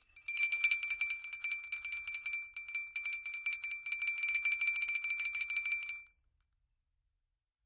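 Bells jingling rapidly over a steady high ringing tone, like a sparkle sound effect; it stops suddenly about six seconds in.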